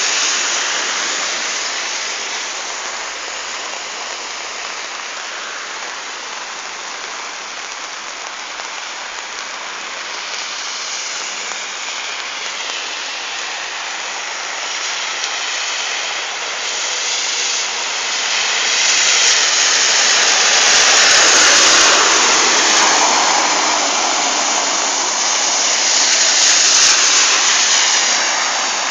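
Steady hiss of heavy rain on a flooded street, with cars' tyres swishing through the standing water. A car passes loudest about twenty seconds in, its sound falling as it goes by, and another swells up near the end.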